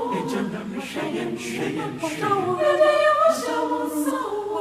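Choir singing a Twi worship song, several voices holding and moving between notes together.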